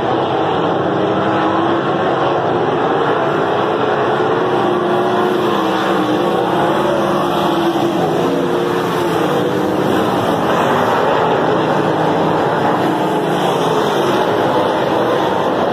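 A pack of winged sprint cars racing on a dirt oval, several engines running at once at high revs, their pitch rising and falling in overlapping waves as the cars circle the track.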